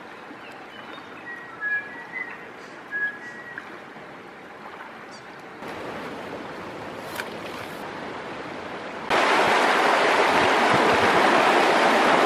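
Creek water running, quiet at first with a few short high chirps. About nine seconds in, it jumps to the loud, steady rush of a shallow rapid over stones.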